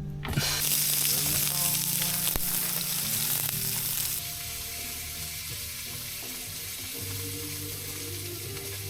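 Food frying in a pan with a steady sizzle. It is louder for the first few seconds and then settles to a softer sizzle.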